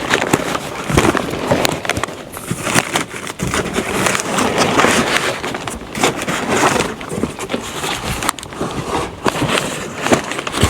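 A box being opened and a part unpacked by hand: busy rustling and scraping of packaging with many scattered clicks and knocks.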